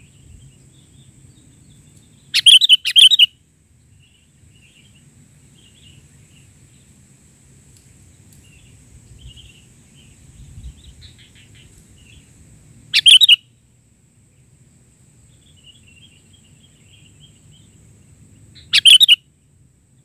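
Sooty-headed bulbul singing: three loud, short bursts of quick bubbly notes, the first about two and a half seconds in, one around thirteen seconds, and one near the end. Fainter, softer chirps fall between them.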